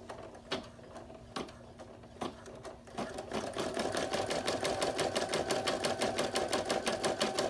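Embroidery machine sewing a satin stitch around a felt appliqué. A few separate clicks come first, then about three seconds in it settles into a fast, even rhythm of needle strokes.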